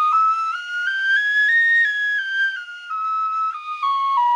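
3D-printed penny whistle playing a scale, one note after another. It climbs to its top note about one and a half seconds in and then steps back down. The whistle sounds nearer E-flat than its nominal D.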